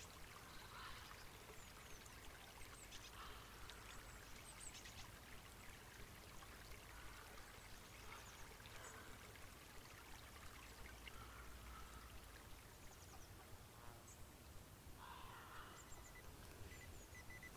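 Near silence: faint outdoor ambience with short, high bird chirps now and then.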